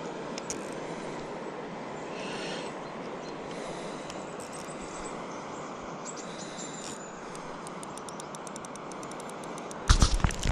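Steady hum of distant road traffic, with light, rapid, even ticking from a spinning reel being cranked in the last few seconds. Near the end comes a sudden loud bump and rustle of handling noise.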